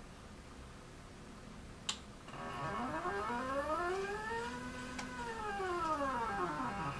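A sharp click, then the robot arm's four-wire stepper motors whine through a move. Their pitch rises as they speed up and falls as they slow down, and the whine stops suddenly near the end.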